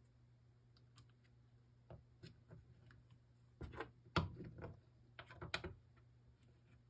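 Faint clicks and taps of plastic recoil-starter parts being handled and seated onto the starter pulley's hub, a few scattered ones at first, then two louder clusters about halfway through and a second later.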